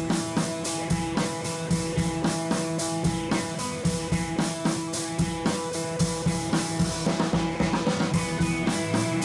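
Background music with a drum kit keeping a steady beat over held guitar notes.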